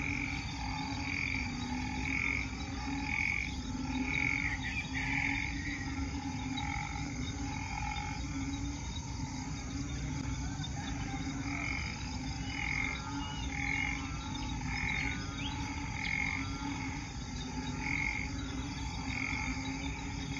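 A chorus of frogs calling after heavy rain, a breeding chorus, with calls that pulse about once a second over a steady low rumble.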